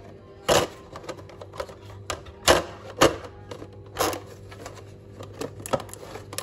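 Aluminium foil crackling and clicking in irregular sharp snaps as the crimped foil edge of a disposable foil tray is pried up and peeled back, over a steady low hum.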